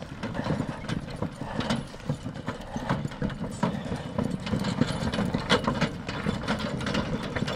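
Draft stallion's hooves clopping, with the rattle and knocking of the cart it is pulling: irregular knocks several times a second over a low rumble.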